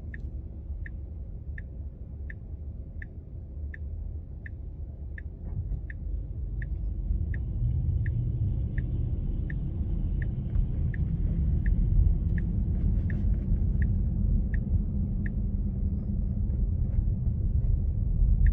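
Tesla Model 3's turn-signal indicator ticking steadily, about three ticks every two seconds, with the left-turn signal switched on by Full Self Driving as it nears a four-way stop. Under it is a low road and tyre rumble in the cabin, which grows louder a few seconds in as the car picks up speed.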